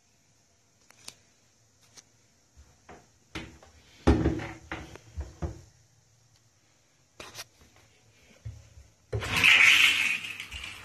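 A few knocks and handling clicks, then about nine seconds in water starts gushing loudly from a tap.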